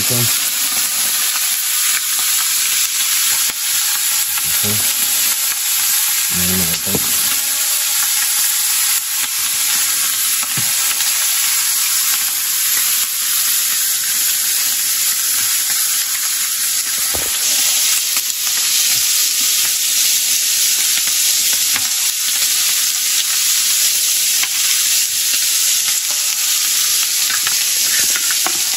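Strips of meat frying in oil in a pan over a portable gas burner: a loud, steady sizzling hiss.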